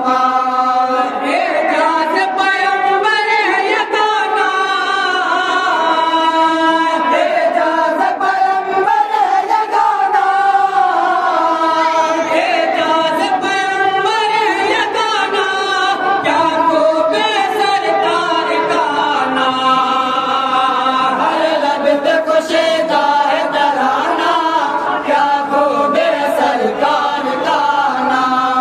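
A group of men chanting devotional verse together in unison, unaccompanied, one voice leading into a handheld microphone.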